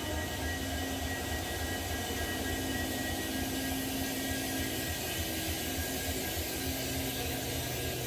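Diesel locomotive standing with its engine idling: a steady drone with a low throb and a few faint, steady whining tones above it.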